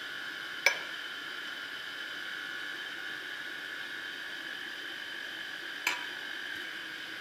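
A metal spoon clinks sharply against glass twice, about five seconds apart, over a steady background hum.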